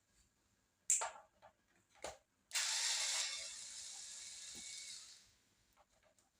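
Two sharp knocks, then a small electric screwdriver runs for about two and a half seconds, backing out a screw from a laptop's bottom cover, its whir fading toward the end. A few faint ticks follow.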